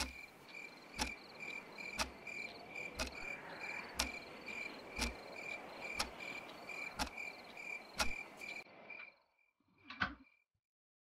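Night ambience of crickets chirping in a steady pulse, with a clock ticking once a second. Both cut off abruptly about nine seconds in, and one brief sound follows about a second later.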